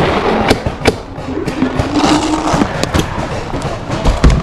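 Paintball markers firing scattered single shots, a few sharp pops over a second or two apart, with a heavy low thump near the end.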